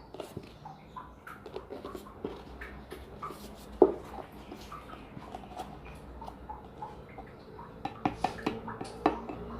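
Small objects being handled on a table: scattered light clicks and knocks, one louder knock about four seconds in and a quick run of clicks near the end.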